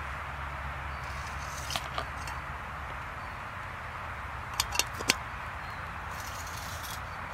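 Lid of a small aluminium teapot on hot embers lifted and set back on, giving two light metal clicks about two seconds in and three sharper clinks around five seconds in, over a steady hiss.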